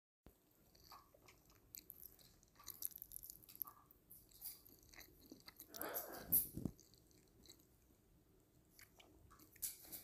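A cockatoo biting and nibbling at an empty plastic soda bottle: scattered faint clicks and plastic crinkles, with the loudest bout of crackling about six seconds in.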